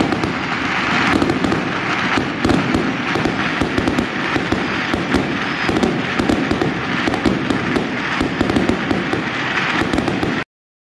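Aerial fireworks going off in a rapid, continuous barrage of bangs and crackling pops, cutting off suddenly near the end.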